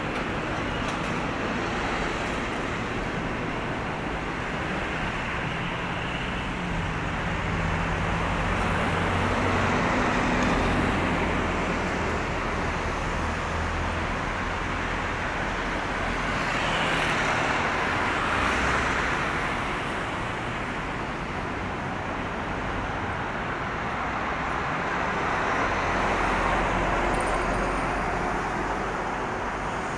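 Road traffic: a steady wash of car and engine noise that swells three times as vehicles pass.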